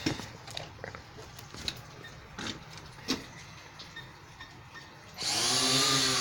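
A few scattered clicks and taps, then about five seconds in a small drone's electric motors and propellers spin up and run with a loud, steady whirring whine.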